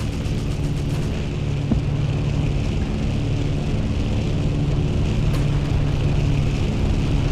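A motor running steadily with an even, low drone, under a continuous rushing noise.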